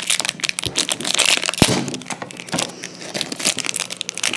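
Shiny trading-card pack wrapper being crinkled and torn open by hand, a dense crackling with one sharp click about a second and a half in.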